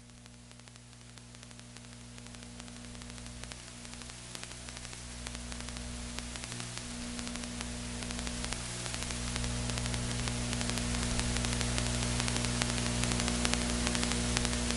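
Electrical hum and crackling static on the audio feed, growing steadily louder.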